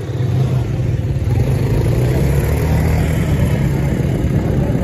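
A motor engine running steadily at a low, even pitch, without revving up or down.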